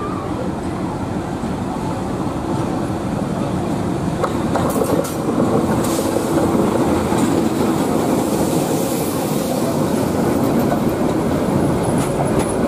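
A 44-year-old diesel locomotive hauling passenger coaches passes close by: a steady engine rumble with wheels clattering over rail joints and points, and brief wheel squeal. It grows louder about five seconds in as the locomotive draws level.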